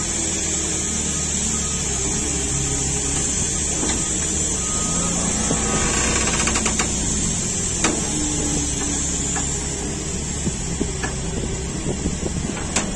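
Steady machinery noise from the tire-changing setup: a low engine hum under a strong, steady high hiss. A brief fast rattle comes about six seconds in, and a few sharp clicks follow later.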